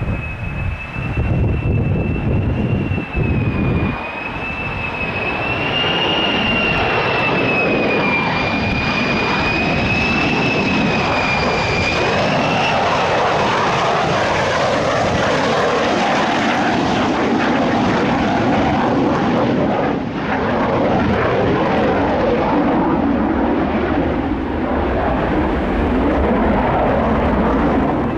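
F-35A fighter's Pratt & Whitney F135 jet engine, loud and steady, with a high whine that wavers slightly in pitch and fades out about halfway through.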